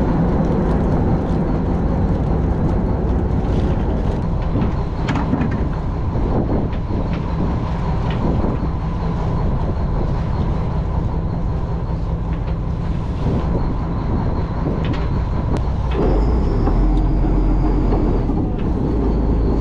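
Fishing boat's engine running steadily, a continuous low rumble with a steady hum, with occasional short knocks.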